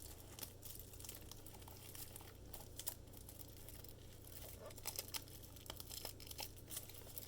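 Faint crinkling and rustling of packaging being handled, with scattered light clicks and taps.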